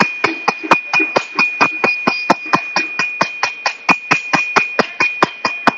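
Quick, light hammer strikes, about four a second, with the peen of a hammer on a sheet-metal feather lying on an anvil, each blow ringing, over a steady high ring from the metal. This is the strike-by-strike texturing of the feather's lines, run along its length at a slight angle.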